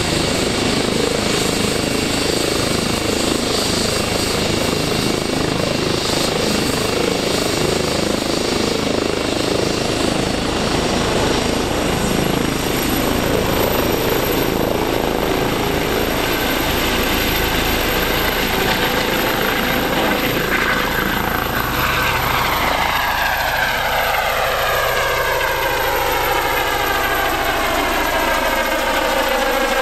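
ADAC air-rescue helicopter's turbines and rotors running loudly, with a high whine that rises about a third of the way in. In the second half it lifts off and climbs, and the sound takes on a swooshing sweep that falls in pitch.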